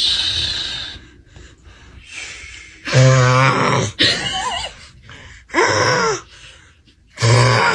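A man snoring loudly: deep, drawn-out snores about every two seconds, four in all. A brief higher-pitched wavering sound comes about halfway through.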